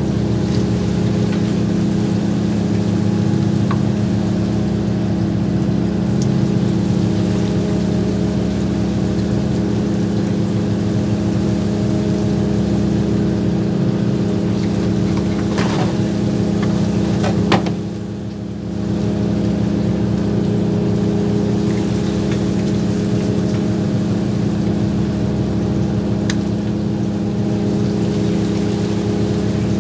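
A fishing boat's engine running steadily with an even drone. A couple of sharp knocks come a little past halfway, and the drone dips briefly just after.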